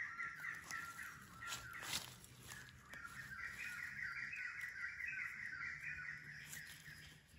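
A rapid, pulsing animal call repeating about eight times a second in two long runs, broken off for about a second and a half in the middle. Under it, scattered soft scrapes and clicks of a knife digging into soil and dry leaf litter to lift out a mushroom.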